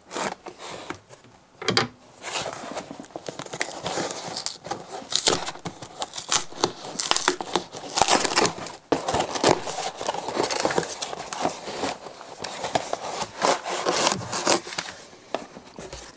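Packing tape on a cardboard mailing box being cut with a knife and torn off, then the box opened and brown paper packing crinkling and rustling as the contents are pulled out. Irregular scraping, tearing and crackling throughout.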